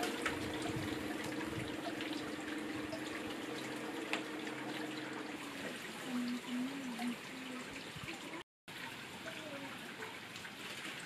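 Water trickling steadily, with a low hum through the first half and a short wavering tone about the middle.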